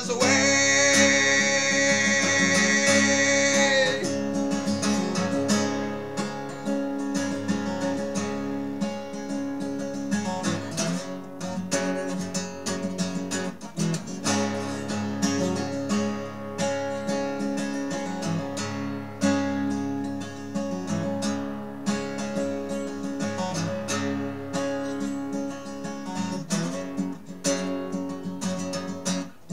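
Acoustic guitar strummed in an instrumental break of a song, with a long held note ringing over the chords for the first four seconds.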